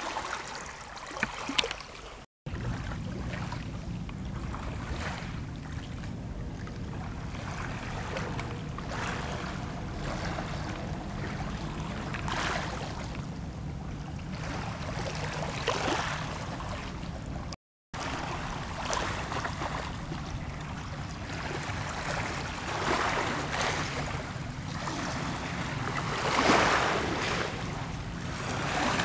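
Small lake waves lapping and splashing against a rocky shore, every second or two, over a steady low rumble. The sound drops out briefly twice.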